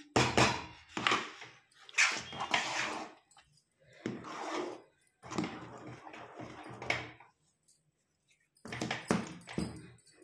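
A steel spoon stirring and pressing thick, stiffened corn-flour dough in a steel pot: repeated wet scraping strokes about one a second, with a pause of about a second shortly before the end.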